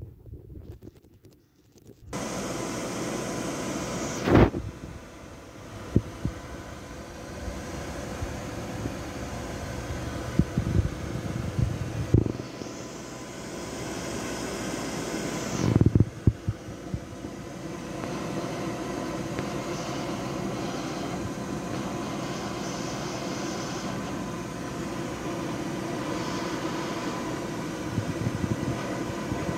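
A steady fan-like whir, switching on about two seconds in, with scattered knocks and clunks from kitchenware and containers being handled; the loudest clunks come about four and sixteen seconds in.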